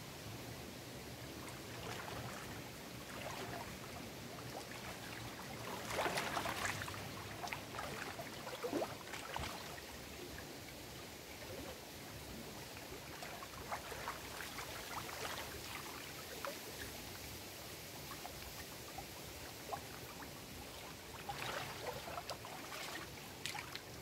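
Small lake waves splashing and lapping against shoreline rocks, in uneven bursts over a steady wash, with the loudest splashes about six seconds in and another cluster near the end.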